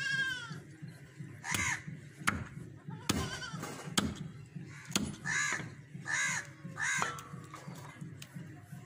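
Crows cawing outdoors in short repeated calls, three in quick succession about five to seven seconds in, with a longer wavering bleat-like animal call at the very start. Several sharp knocks in between, from a knife striking meat on a wooden chopping log.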